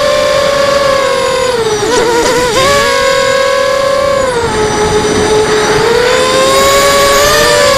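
FPV quadcopter's electric motors whining as heard through the onboard camera: several close tones sag in pitch about two seconds in and again for a couple of seconds past the middle, then climb back as the throttle changes. A steady rush of air noise runs underneath.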